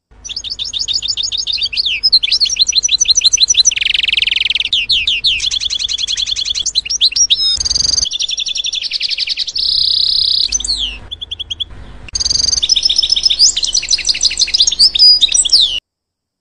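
Green honeycreeper singing: a long run of rapid, high chirping trills that dips quieter about eleven seconds in and cuts off suddenly just before the end.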